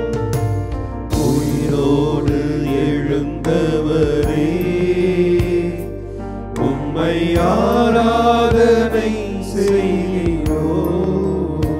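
A devotional adoration hymn, sung in Tamil, with melodic vocal lines over instrumental accompaniment that holds long low notes.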